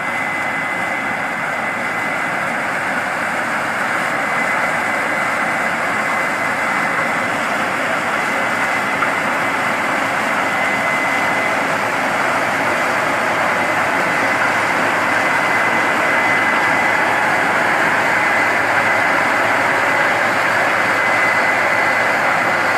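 Case IH combine harvester cutting corn with an OMBU CM 2020 corn header: the engine, threshing rotor and header run as one steady mechanical noise with a steady high whine, growing gradually louder.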